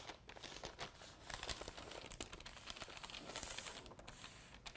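A chalk pounce sock rubbed and dabbed over a perforated paper pattern laid on a car's side panel, the paper rustling and crinkling with soft, irregular scratchy strokes.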